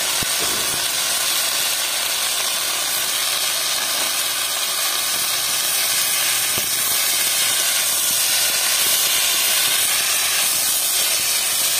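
Boiled spinach and brinjal frying in hot oil in a kadhai: a steady sizzling hiss of frying and steam from the wet vegetables.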